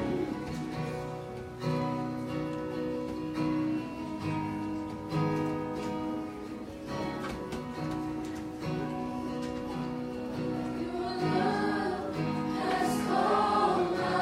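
Live worship music in church: held instrumental chords with guitar, and singing voices that come in strongly near the end.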